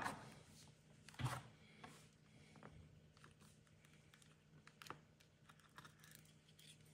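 Faint crackles and clicks of a thin clear plastic mould being flexed by hand to pop out a moulded chocolate pumpkin shell, with a louder click about a second in.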